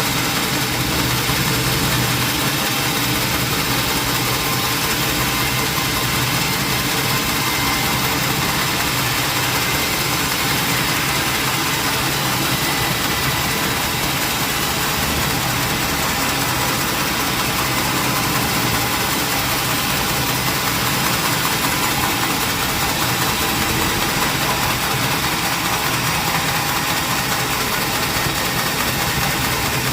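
Sawmill machinery running steadily: a continuous engine-type noise that holds one level throughout, with no revving or separate cuts.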